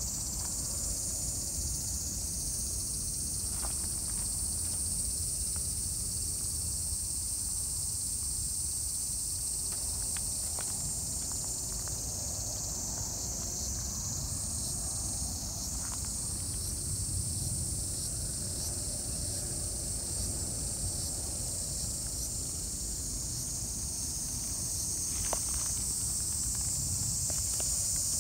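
Steady chorus of insects, most likely crickets, a continuous high-pitched trill that never breaks, over a low rumble and a few faint ticks.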